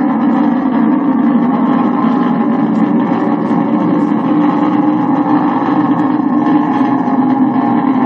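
Long March 1 rocket engines during the launch ascent, a loud, steady roar that holds an even level without breaks.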